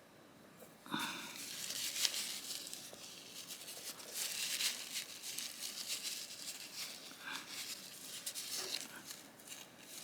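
Handling of small knife parts and tools on a work surface: a rapid run of light clicks, taps and rustling that starts about a second in, with a brief ringing ping at the start and another later on.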